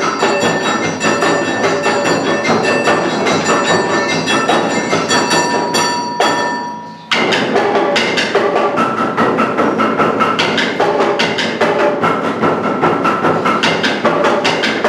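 Awa Odori dance music: a fast, driving beat of drums and a clanging gong with a high melody over it. It fades briefly about seven seconds in and then comes back abruptly.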